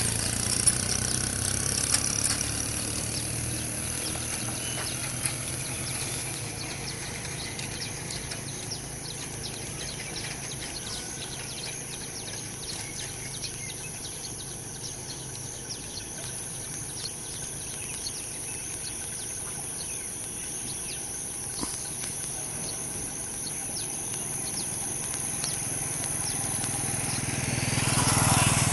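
Outdoor street ambience. A vehicle engine fades away over the first few seconds, faint bird chirps come through the middle, and another vehicle grows louder near the end.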